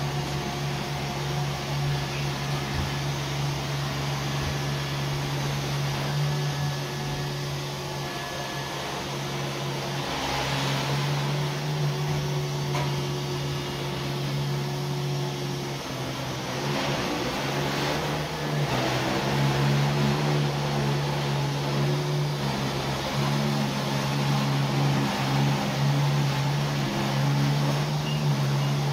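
Robot vacuum cleaners running, a Neato D7 and a Samsung POWERbot VR9300: a steady motor and suction hum that grows somewhat louder about two-thirds of the way through.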